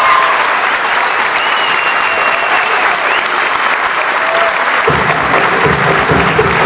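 Audience applauding loudly as the folk dance music breaks off. About five seconds in, a rhythmic low accompaniment starts up under the applause.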